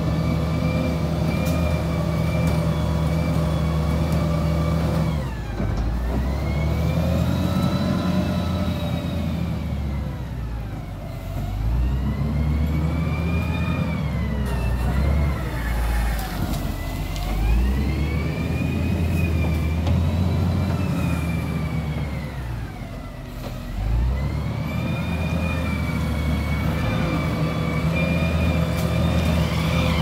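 SD300 wheel loader's diesel engine working under load: it runs steadily, then its revs drop and climb again several times in the middle as the loader pushes, lifts and dumps dirt, before settling back to a steady run near the end.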